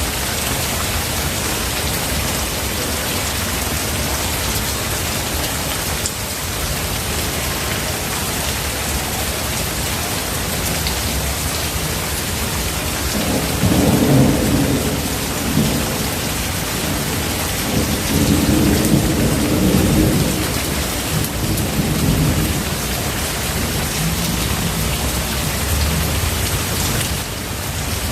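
Steady heavy rain hissing, with thunder rumbling in twice about halfway through, the second roll lasting a few seconds, then dying back under the rain.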